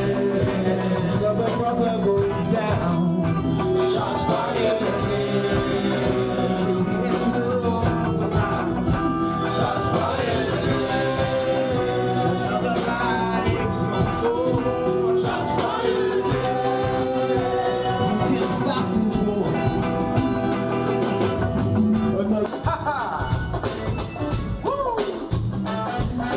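Live band with electric guitar and drums playing a song while a singer sings over it. About 22 seconds in, the music drops back and gets quieter.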